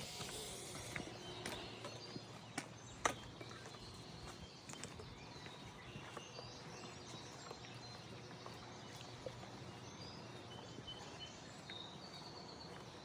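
Faint outdoor ambience: a low steady hiss with a few short bird-like chirps and several sharp clicks or knocks in the first few seconds, the loudest about three seconds in.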